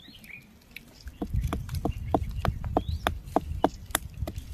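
A hand-held stone knocking on a rock to crack charoli (chironji) seed stones and free the kernels. A quick series of sharp knocks, about four a second, starts about a second in, over a low rumble.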